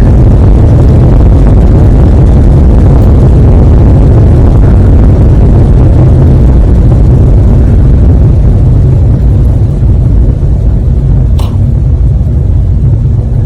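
Loud, steady low rumble of unclear origin, easing slightly near the end, with one sharp tap about eleven and a half seconds in.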